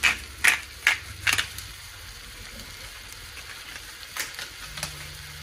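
Hand salt grinder filled with pink salt being twisted, crunching out salt in four quick grinds over the first second and a half. A faint hiss follows, and a low steady hum starts near the end.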